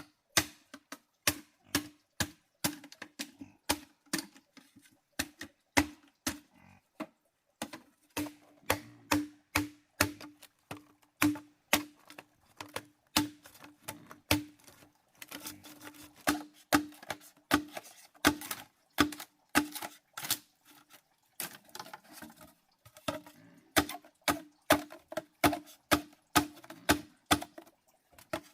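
Repeated sharp knocks, irregular at about two a second, each with a short hollow ring.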